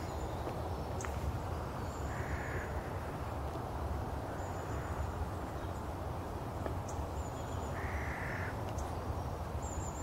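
A crow cawing twice, several seconds apart, each call short, over a steady low outdoor rumble.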